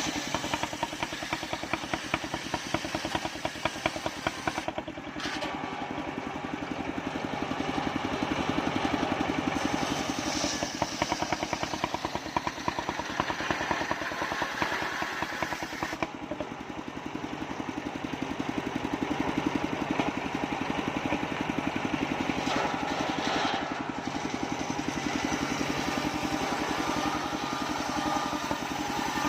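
Engine of a homemade mobile circular sawmill running steadily with an even, rapid firing beat. A harsher, higher-pitched layer from the saw rises and falls several times over it.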